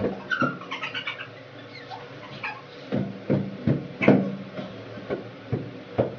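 Two women laughing and giggling in short, repeated bursts.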